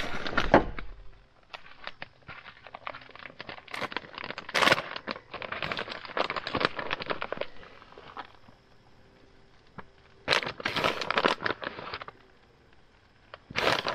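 Plastic bag of shredded cheese crinkling and crackling as it is handled and opened, in irregular bursts: one around the middle and another a few seconds later.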